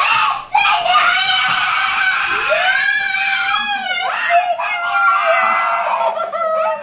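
A young girl screaming with excitement in long, high-pitched squeals: one held for about four seconds, then a second after a short break.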